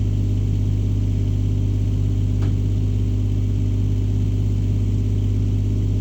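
Engine running steadily at an even speed, a constant deep hum, with one faint tick about two and a half seconds in.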